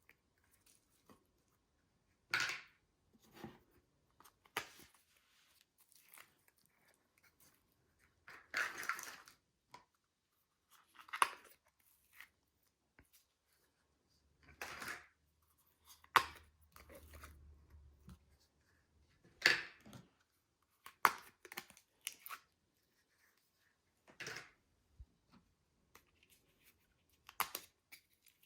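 Slime being mixed: short, irregular sticky crackles and tearing pops as it is pulled and worked, each burst a second or more apart.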